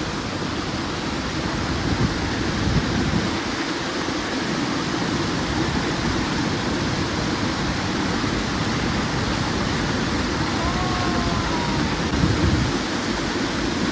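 Large waterfall rushing steadily, with gusting wind buffeting the microphone as uneven low rumbles that swell a couple of times.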